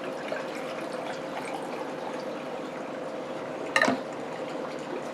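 A bottled drink being poured into a glass, a steady stream of liquid filling it. About four seconds in there is one sharp clink.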